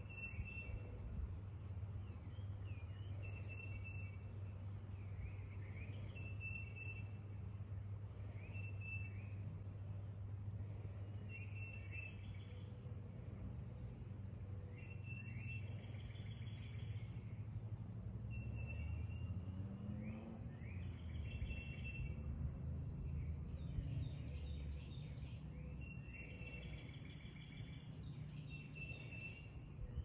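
Morning chorus of songbirds, one bird repeating a short high phrase about every two seconds, with other calls in between. Under it a steady low rumble of a distant engine, swelling with a rising hum around two-thirds of the way through.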